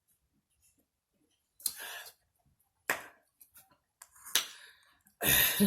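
Handling noises: a short hiss, then a few sharp clicks and knocks, with a louder, fuller knock near the end.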